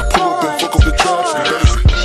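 Hip hop background music with a steady drum beat.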